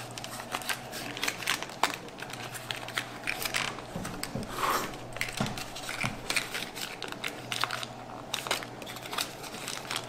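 Hands working loose the cooler's mounting brackets, jammed tight inside a small cardboard accessory box: crinkling and rustling of the packaging with many small clicks and scrapes.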